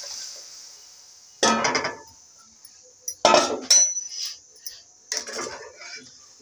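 A steel wok of lentil dal that has just gone into hot oil: its hiss dies away in the first second. Then a metal spatula clanks and scrapes against the wok in three short clatters, one of them ringing briefly.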